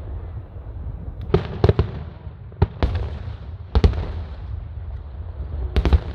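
Aerial fireworks bursting: about nine sharp bangs in quick pairs and triplets, with a continuous low rumble underneath.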